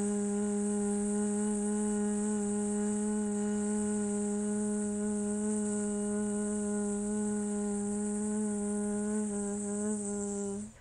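A woman's bee breath (bhramari): one long, steady buzzing hum made through closed teeth on a single exhale, held at one pitch and stopping abruptly near the end.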